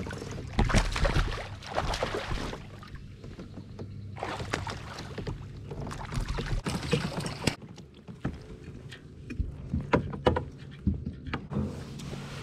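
A hooked bass thrashing and splashing at the surface beside a kayak, then water sloshing as it is scooped into a landing net, with a few sharp knocks late on.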